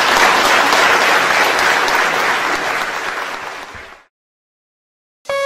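Audience applauding, fading out about four seconds in. After a second of silence, electronic music starts right at the end.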